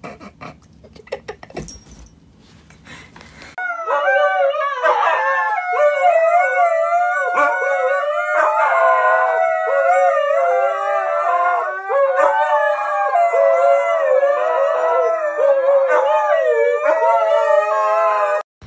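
Dogs howling together in long, wavering howls, several pitches overlapping. The howling starts suddenly about three and a half seconds in, after a few faint knocks, and cuts off sharply near the end.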